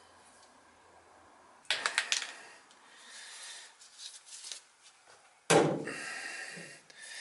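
Handling noise from a circulator pump being fitted to the boiler piping: a quick run of clicks about two seconds in, rubbing and scraping, then a loud knock about five and a half seconds in.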